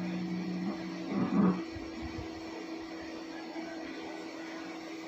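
Steady low tone through the PA speakers, with a lower second tone that stops under a second in and a brief louder sound about a second in.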